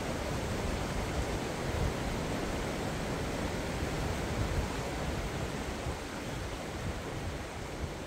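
Steady rushing of a shallow river running over rocks and spilling across a low weir.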